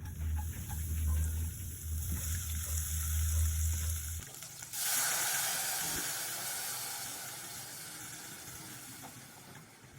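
A low steady hum stops about four seconds in. Just after, a loud hiss starts suddenly and slowly fades away.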